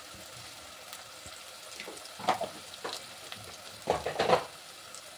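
Chopped onion and ginger sizzling steadily in hot mustard oil in a clay handi, with a metal spoon scraping and stirring in the pot a few times, loudest about four seconds in.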